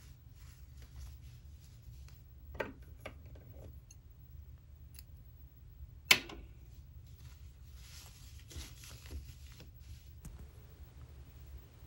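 Faint handling sounds of cross-stitching on Aida cloth: soft rustles of floss and needle and scattered light clicks, the loudest a single sharp click about six seconds in.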